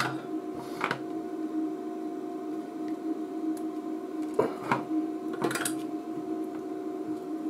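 Steady hum of bench equipment, with a few small clicks and scrapes as a soldering iron and desoldering braid are worked on a capacitor's leads on a circuit board.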